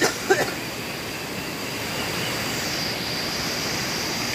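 Steady rush of flowing water from a small rocky forest stream, with a thin, steady high tone over it.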